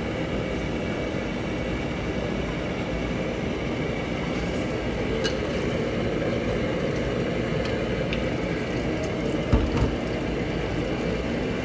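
Steady noise of a commercial gas wok range running, under a metal ladle stirring and scraping thick chicken curry in a steel wok. A couple of knocks of the ladle on the wok come about nine and a half seconds in.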